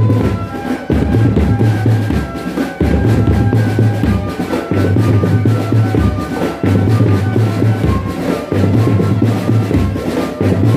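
Drum band music: a heavy bass-drum beat pulsing in even blocks under a sustained melody line, with snare and percussion.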